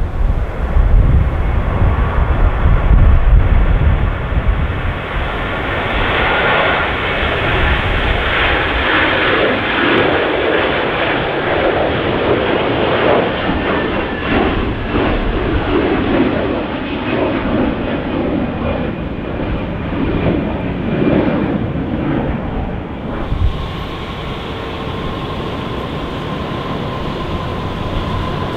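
Jet airliner's engines at take-off power: a loud rush that builds about six seconds in and eases off after about twenty-three seconds. Strong wind buffets the microphone in the first few seconds.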